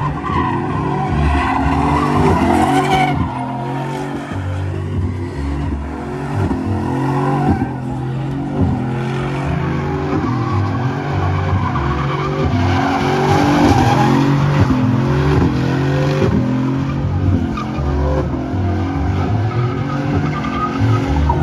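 Chevrolet Silverado pickup doing a burnout in circles: its V8 revs up and down over and over while the rear tires spin and squeal on the pavement.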